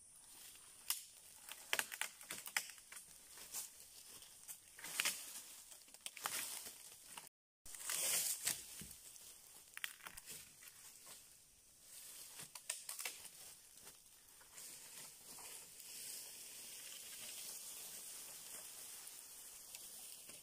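Dry wood and leaf litter crackling, snapping and rustling as a sapling is pulled at and a long pole is handled on the forest floor. The snaps come irregularly, thickest in the first half, with a louder rustle about eight seconds in.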